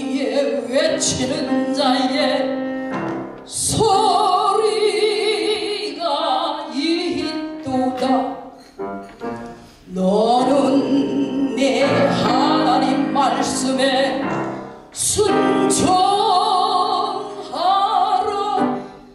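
A woman singing a Korean Christian song with vibrato into a handheld microphone, accompanied by piano. She sings in long phrases, with short breaks about three and a half, ten and fifteen seconds in.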